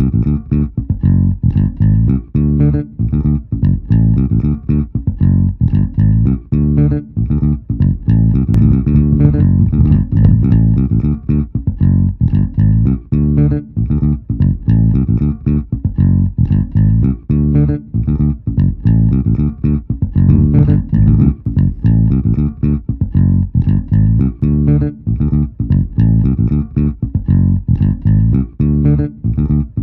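Background music with a prominent plucked bass line and guitar, in a steady repeating rhythm.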